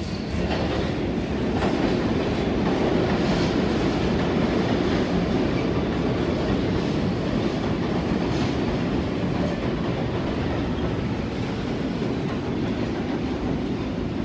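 New York City subway train running alongside the platform: a loud, steady noise of steel wheels on the rails, with a few faint clicks.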